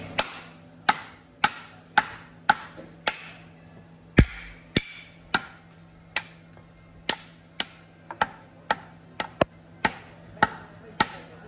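Hammer striking wood over and over, about two blows a second and somewhat uneven, with one heavier, deeper blow about four seconds in.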